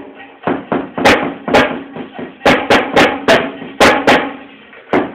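Acoustic drum kit played with sticks: a string of snare and tom hits in an uneven rhythm, with several cymbal crashes among them.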